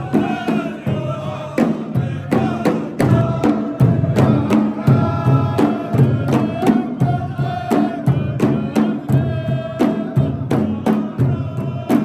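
Music: a voice singing over a steady beat of drum strikes.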